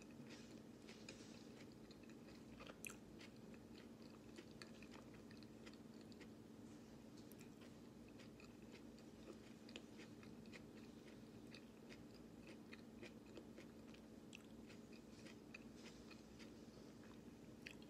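Faint chewing of raw pechay (bok choy), soft crunches and mouth clicks scattered throughout, over a steady low hum in the room.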